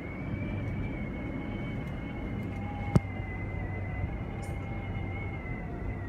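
Cable car gondola running along its cable, heard from inside the cabin: a steady low hum under a thin high whine that drifts slightly down in pitch, with a single sharp click about three seconds in.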